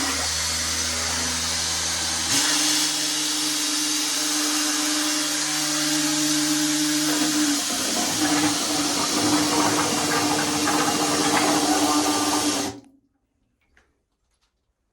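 Power drill spinning a small drill-powered transfer pump that is pumping water out of a toilet bowl: a steady motor whine over a loud hissing rush. Its pitch steps up about two seconds in, and it stops abruptly near the end.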